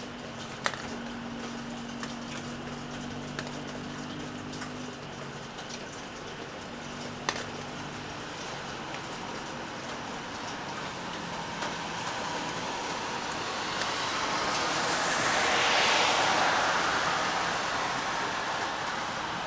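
Steady rain falling, with a few sharp drips. A low hum fades out early on, and later a hiss swells up, loudest near the end, and fades again: a vehicle passing on a wet road.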